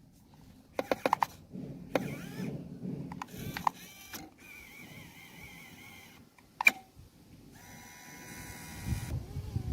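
A small homemade machine working: a run of clicks and knocks from its mechanism, with the whine of a small electric motor running for a second or two at a time.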